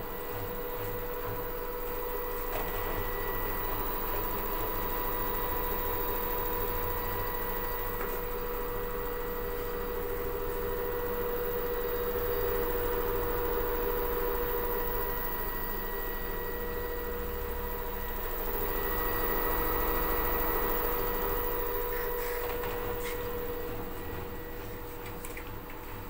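LG front-loading washing machine on its spin cycle: the drum motor gives a steady whine over a low rumble from the spinning drum, the loudness swelling and easing a few times.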